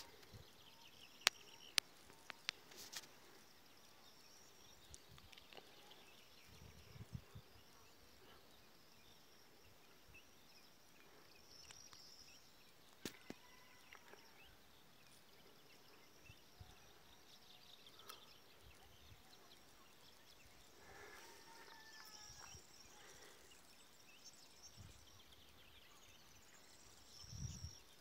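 Near silence of open countryside: a faint steady hiss with scattered soft, distant animal calls, and a few sharp clicks, several of them in the first three seconds.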